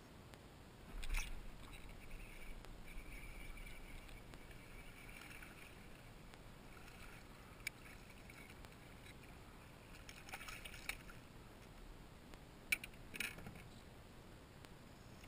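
Faint sounds of a small fish being played and landed from a kayak: a louder rush about a second in, a few seconds of light hiss, then a sharp click near the middle and a few clicks and knocks near the end.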